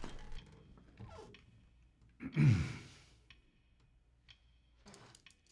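A man's exasperated sigh about two seconds in, falling in pitch as he breathes out.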